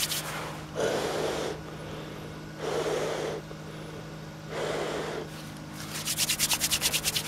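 Cold hands being warmed: three long breaths blown onto the fingers, then the palms rubbed briskly together near the end, about nine strokes a second. A faint steady low hum runs underneath.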